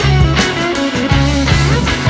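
Background music: rock with guitar and a steady drum beat.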